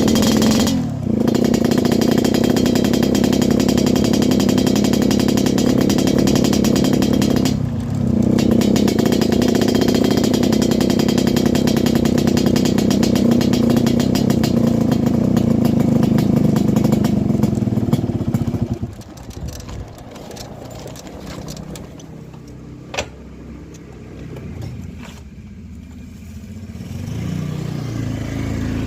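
Yamaha RX-King's single-cylinder two-stroke engine running hard under way, its note dipping briefly twice. About two-thirds through, the throttle eases and it goes much quieter, then builds up again near the end.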